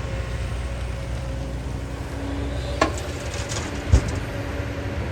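Kobelco excavator's diesel engine running steadily with a low rumble. Two sharp knocks cut through it past the middle, the second deeper and louder.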